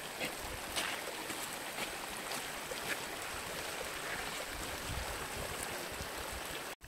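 Running water flowing steadily, with faint scattered ticks and splashes.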